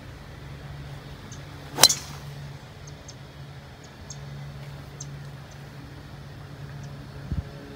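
Golf driver striking a teed ball: a single sharp, loud crack of the clubhead on the ball about two seconds in.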